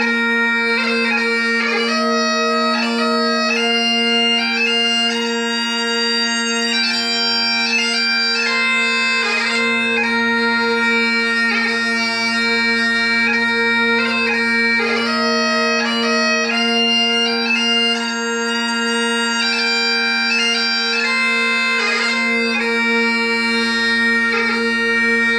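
Highland bagpipe playing a tune: a melody moving from note to note over steady, unbroken drones.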